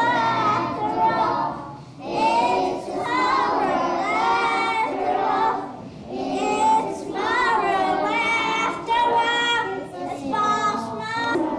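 A group of young children singing together, unaccompanied, in sung phrases with brief breaks between them.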